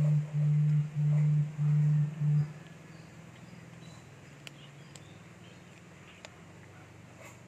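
Audio feedback howl from an indoor surveillance camera whose audio was left switched on: a low steady tone pulsing about twice a second, cutting off about two and a half seconds in. A few faint clicks follow over quiet background.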